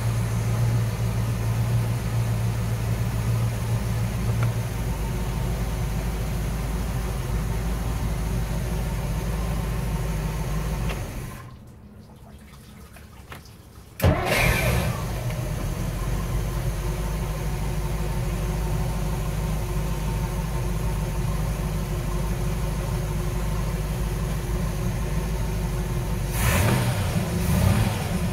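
Chris-Craft Catalina 281's port 305 V8 inboard engine idling steadily on a test run. It dies away about 11 seconds in, is restarted about three seconds later and catches at once. Near the end it is given a little more throttle.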